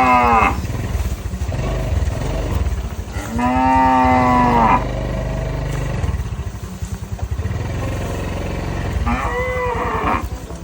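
Cows mooing: a call tailing off just at the start, a long drawn-out moo a few seconds in, and a shorter one near the end, over a steady low rumble.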